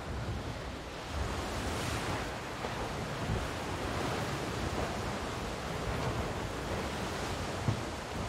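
Ocean surf: a steady rushing wash of waves breaking.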